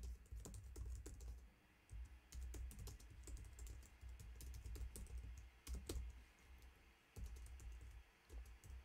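Faint typing on a computer keyboard: irregular runs of quick key clicks with short pauses between words.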